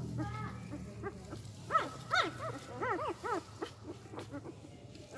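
Four-day-old Indian desi dog puppies whining: a quick run of about half a dozen short high cries, each rising and falling in pitch, starting a couple of seconds in.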